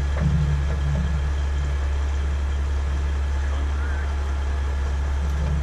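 Heavy truck engine idling, a steady low drone.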